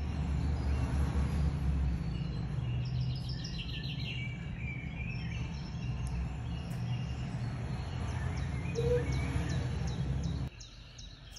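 Steady low background rumble with birds chirping in short repeated runs over it; the rumble cuts off suddenly near the end.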